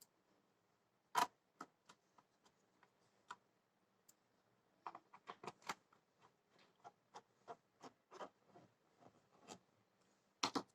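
Faint, irregular clicks and taps of a screwdriver and small screws against a laptop's plastic base panel as the screws are fitted. There is one sharper click about a second in, and a quick run of clicks around the middle.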